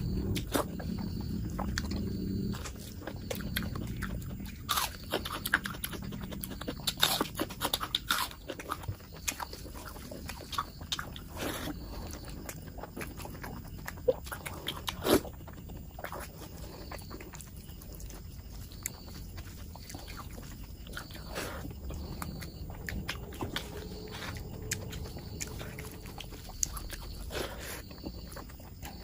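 Close-miked eating sounds: a person chewing and biting mutton curry, with irregular sharp clicks of the mouth and teeth, most frequent in the first several seconds.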